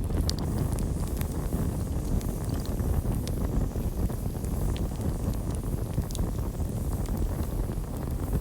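Campfire burning: a steady low rumble with scattered sharp crackles and pops.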